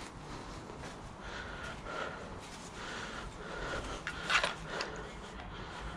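Close rustling of clothing and gear with breathing, in short bursts, the loudest about four seconds in.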